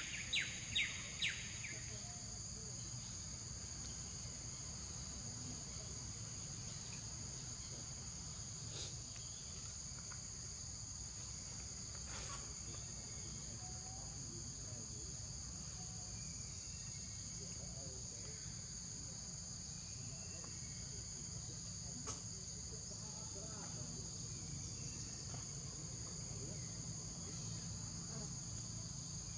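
Steady high-pitched drone of an insect chorus, holding two even pitches, with a quick run of high, falling chirps in the first second or so.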